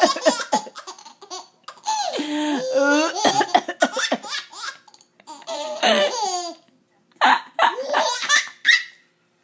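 A baby laughing heartily in about four bouts with short pauses between them. The laughter answers the coughing sounds that set it off.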